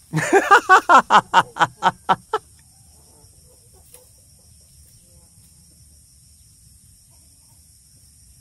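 A chicken clucking: a rapid run of about ten loud clucks, some four or five a second, lasting a little over two seconds and then stopping.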